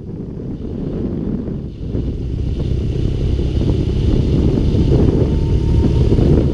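Wind noise buffeting the microphone of a camera on a moving motorcycle, with the bike's engine running underneath. It grows louder over the first few seconds.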